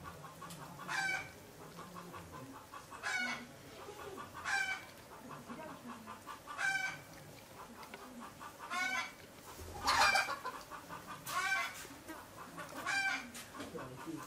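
A chicken calling over and over: short, pitched calls every second or two, about nine in all.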